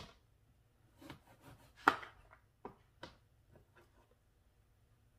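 Kitchen knife cutting through lemons and knocking on a cutting board: a handful of sharp, irregular cuts and taps, the loudest about two seconds in, fading to faint ticks near the end.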